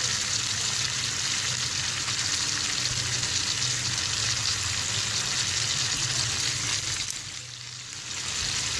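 Chicken pieces with onion and tomato frying in oil in a wok-style pan, a steady sizzle. It drops away briefly near the end, then comes back.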